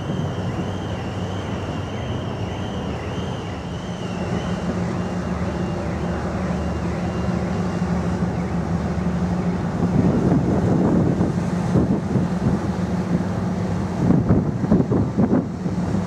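Steady low drone of a passing Wightlink car ferry's engines, with wind buffeting the microphone in gusts from about ten seconds in. A faint warbling high tone is heard over it for the first few seconds.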